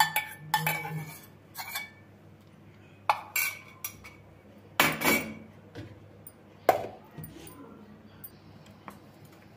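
A stainless steel mixer-grinder jar and its lid being handled: a few scattered clinks and knocks, the loudest about five seconds in.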